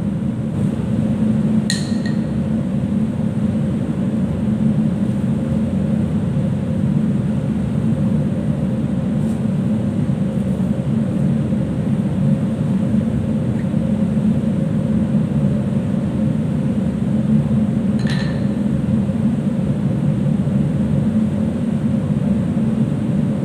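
Steady low drone of a ship's machinery and ventilation, with a faint steady tone above it. Two short clinks stand out, one about two seconds in and another about eighteen seconds in.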